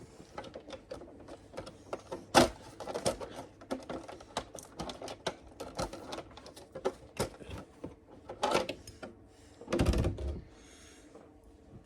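Irregular clicking and rattling as the metal body pins are pulled off an RC car and its plastic body is handled, with a sharp knock about two seconds in and a heavier thump near ten seconds.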